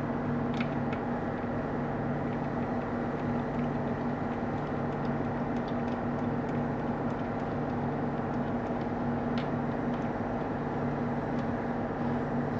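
A steady mechanical hum with a few faint, light clicks scattered through it.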